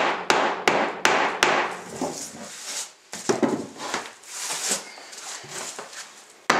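A hammer striking nails in a hardwood floor to knock them down flat, four sharp blows in the first second and a half and more at the very end. Between them, rough scraping and rubbing on the wood.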